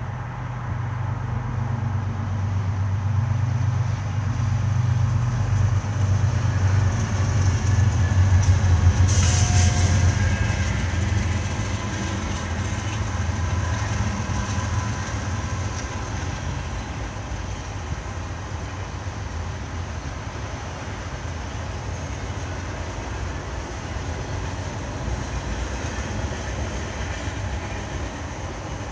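Two BNSF diesel locomotives passing, their low engine drone building to a peak about nine seconds in and then fading. After them comes the steady rumble of the double-stack intermodal container cars rolling by.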